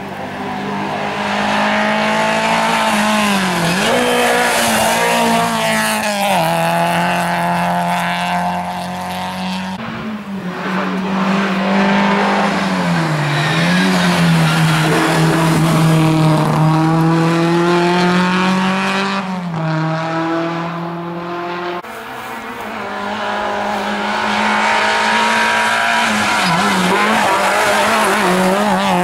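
Historic rally cars driven hard through tight bends: a Lancia Fulvia coupé's V4 engine revving up and down with gear changes and lifts off the throttle, then, after a sudden change about three-quarters of the way through, an Autobianchi A112 Abarth's four-cylinder engine pulling hard out of a hairpin.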